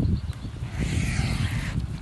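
Wind buffeting the microphone in a low, uneven rumble, with a short hiss about a second in.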